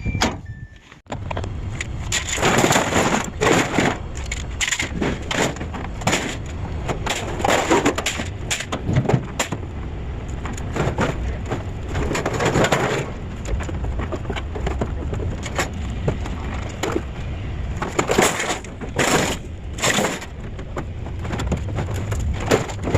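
Scrap metal appliances and grills being unloaded, with repeated clattering crashes of metal hitting metal in bunches several seconds apart over a steady low engine rumble.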